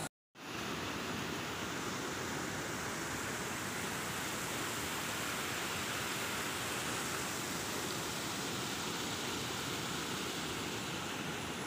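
Steady rush of water pouring over a small concrete weir and down its spillway channel, with a brief dropout right at the start.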